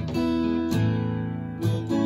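Instrumental accompaniment of a hymn between sung lines: acoustic guitar strumming chords, three strokes each left to ring.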